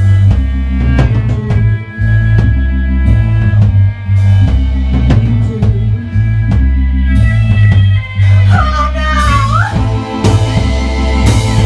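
Rock band playing a song loudly: a heavy bass line and a drum kit keep a steady beat, and from about eight seconds in a line slides up and down in pitch.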